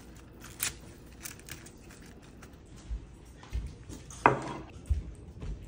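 Kitchen handling sounds: scattered light clicks and taps, then a few low thumps and one louder knock about four seconds in as a ceramic plate of noodles is handled over a wooden board.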